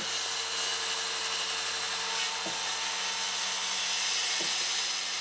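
DeWalt circular saw running steadily as it crosscuts through a clamped stack of four 1.5-inch red oak posts, a steady motor tone under the noise of the cut.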